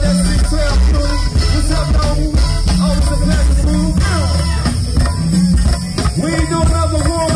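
Live go-go band playing through outdoor PA speakers: strong bass and a steady drum beat, with singing over it.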